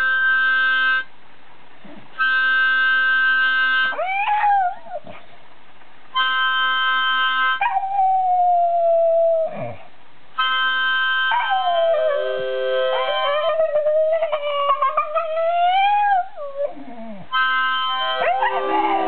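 A harmonica blown in short held chords, each answered by a Staffordshire Bull Terrier howling along. The howls are long and wavering, rising and falling in pitch, and the longest runs about five seconds as it overlaps the harmonica.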